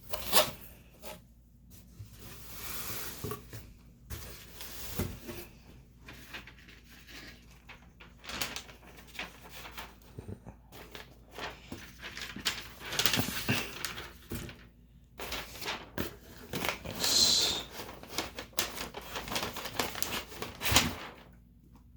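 New leather boots and their packaging being handled while unboxed: irregular rustling, with scattered clicks, knocks and squeaks.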